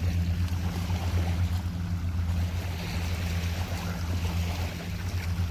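Boat engine running steadily, a low even drone, with a faint wash of water over it.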